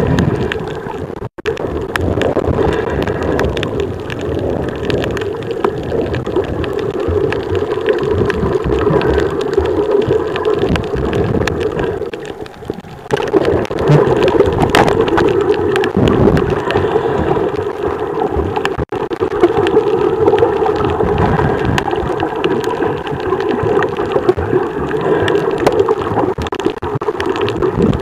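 Underwater sound heard through a camera moved over a coral reef: a steady rush of water against the camera housing with a dense crackle of small clicks. It drops briefly about twelve seconds in.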